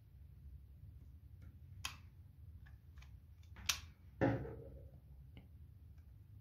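Hot glue gun and craft pieces handled on a wooden table: scattered light clicks and taps, a sharp click a little before four seconds in and a louder knock just after it, over a low steady hum.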